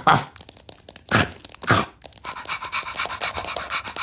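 Cartoon sound effects for a dog-like ladybird: three short loud huffs in the first two seconds, then a fast, steady patter of scurrying steps.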